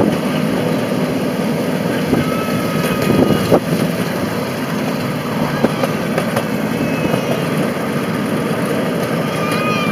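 A 7.25 inch gauge miniature train running: a steady rumble of the wheels on the rails and the diesel locomotive's engine, with a few sharp knocks near the middle.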